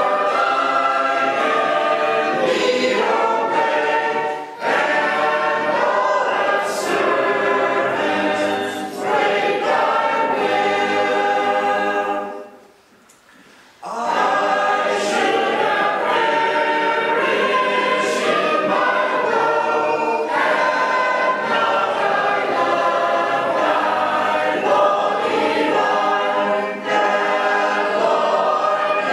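Choir singing, many voices in harmony. The singing breaks off for about a second and a half partway through, then resumes.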